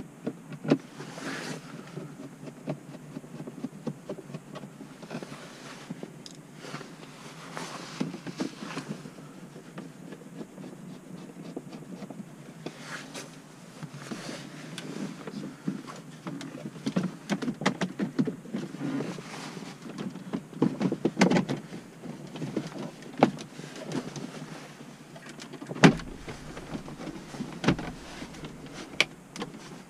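Plastic dashboard trim and a gauge pod being handled and pressed into place by hand: scattered clicks, knocks and rattles of plastic, busiest in the second half, with a sharp snap about four seconds before the end.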